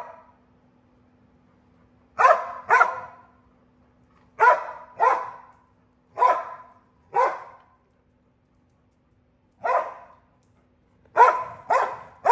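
A dog barking: about ten short, sharp barks, some single and some in quick pairs, with gaps of a second or two between them.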